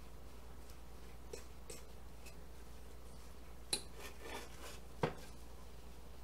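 A fork clinking and scraping against a mixing bowl while a stiff flour, egg and peanut butter mixture is worked together. A few light taps, then two sharper clinks about a second apart past the middle, with scraping between them.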